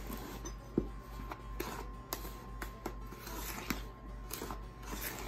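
Silicone spatula stirring a thick, dry muffin batter in a plastic mixing bowl: irregular scrapes and soft taps against the bowl, over quiet background music.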